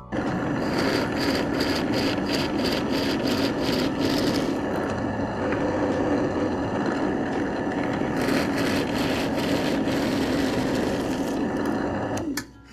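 An electric power tool's motor running steadily, with a rasping that repeats about three times a second for the first four seconds and again later. It starts and stops abruptly.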